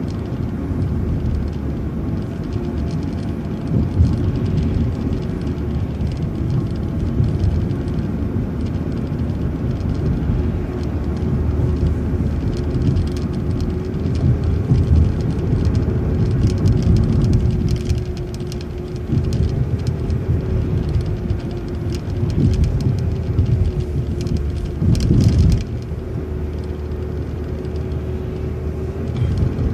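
City bus running on the road, heard from on board: a steady low rumble of engine and road noise with a constant whine. There is a brief jolt or clunk once early on and again near the end.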